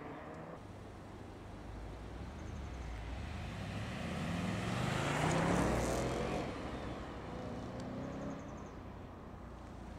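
Audi estate car accelerating past, its engine note rising and its tyre noise swelling to a peak about five and a half seconds in, then fading as it pulls away. A second car's engine follows near the end.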